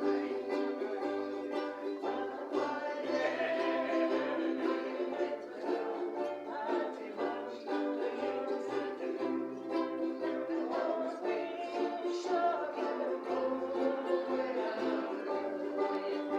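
Several ukuleles strumming chords together in a steady, continuous accompaniment.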